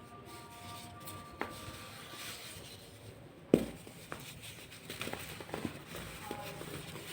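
Dried baking soda being crushed and crumbled: soft gritty crumbling with scattered small crackles, and one sharp crack about three and a half seconds in.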